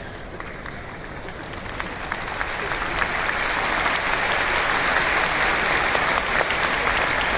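Large audience applauding, the clapping building up over the first few seconds and then holding steady.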